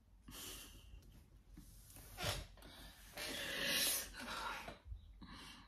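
Breathy exhales and stifled laughter through a hand held over the mouth, in a few short unvoiced puffs, the longest about three seconds in.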